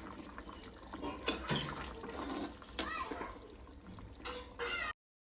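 Water or liquid splashing with a few sharp knocks, then cutting off abruptly about five seconds in.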